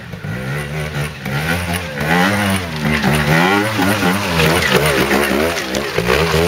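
Trials motorcycle engine revving hard in quick rising and falling bursts as the rider works the throttle up a steep rocky climb. It grows louder about two seconds in as the bike comes close.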